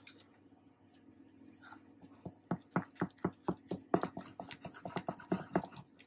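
Spoon beating thick cake batter in a glass mixing bowl, mixing in the flour: quiet at first, then from about two seconds in a quick, even run of strokes at about four a second.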